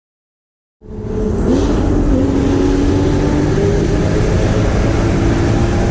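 Porsche Cayman GT4's flat-six engine starting out of silence about a second in, rising in pitch briefly and then running at a steady, loud drone.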